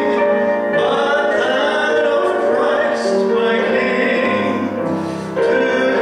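A man singing slow, long-held notes through a handheld microphone, with a brief break between phrases about five seconds in.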